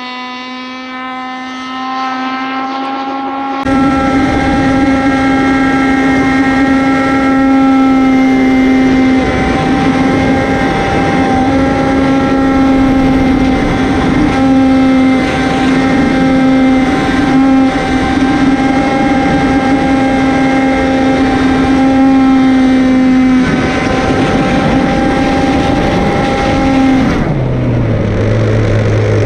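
RC racing boat's OBR engine running steadily at a high pitch under throttle. From a few seconds in it is heard from on board with loud water and wind rush. Near the end the engine pitch drops sharply as it throttles back.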